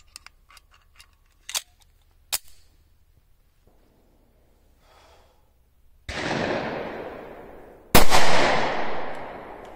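Small metallic clicks as a .45 ACP pistol is loaded and chambered. About six seconds in comes a rush of noise, and about eight seconds in a single .45 ACP pistol shot firing a G2 Research Telos round, with a long echoing decay.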